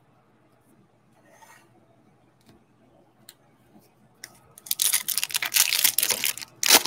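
Foil wrapper of a trading-card pack crinkling and tearing as it is opened. It starts about two-thirds of the way in with a dense crackle and ends in a sharp rip, after a few faint clicks from cards being handled.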